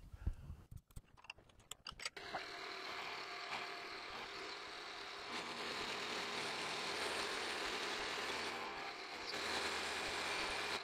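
A few light clicks, then about two seconds in the PM-727 milling machine's spindle starts. It runs steadily while the end mill takes a cleanup pass across the ends of the clamped workpieces.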